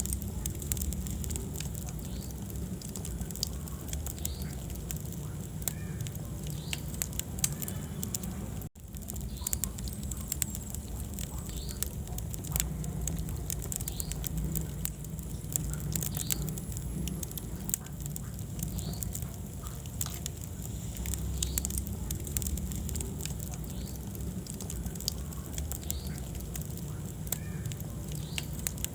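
Wood fire in a fireplace crackling, with frequent sharp pops and snaps over a steady low rumble of flames. The sound cuts out for an instant about nine seconds in.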